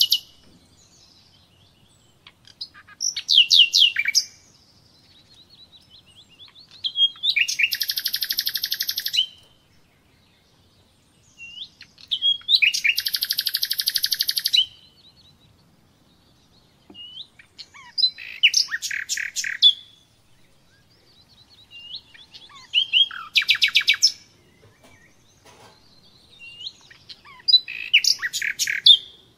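A songbird singing close by: bouts of rapid trilled notes, each lasting one to two seconds, coming every four to five seconds with short chirps between them.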